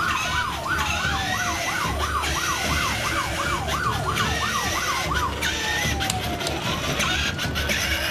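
Emergency sirens: a fast yelp wail sweeping up and down about two or three times a second for the first five seconds or so, overlapping slower, longer wails, over a steady low rumble.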